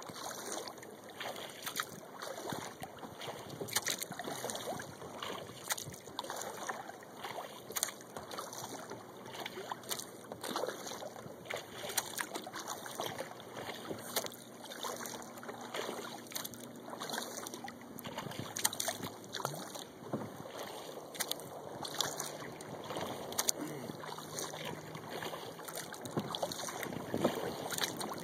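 Water lapping and splashing lightly around a kayak, with irregular small drips and knocks against the hull. A faint low hum comes and goes in the second half.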